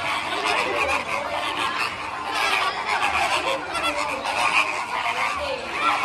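Many birds calling at once, their calls overlapping in a dense, continuous chorus.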